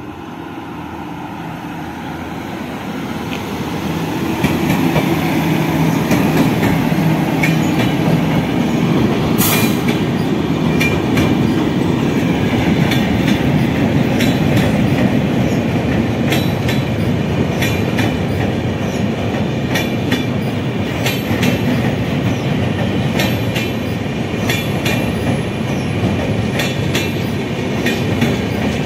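Passenger train hauled by a WAP7 electric locomotive rolling past, its wheels clicking over the rail joints. The noise builds over the first few seconds, then holds steady.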